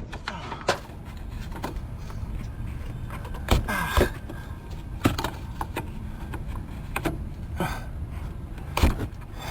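Scattered clicks, knocks and clatter of a filter being worked loose and pulled off a Cummins diesel engine by hand, with a few sharper knocks about halfway through and near the end, over a steady low rumble.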